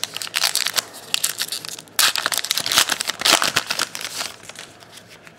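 Wrapper of a trading card pack torn open and crinkled by hand, a dense crackling that is loudest in the middle and dies away near the end.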